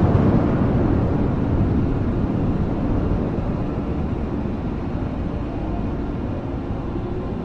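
Steady rainfall under a low rumble of rolling thunder that slowly fades over several seconds.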